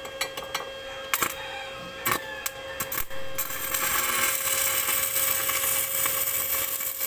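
Stick (rod) arc welding: a few sharp crackles as the electrode is struck, then from about three and a half seconds in a steady crackling, sizzling arc, with a steady hum underneath.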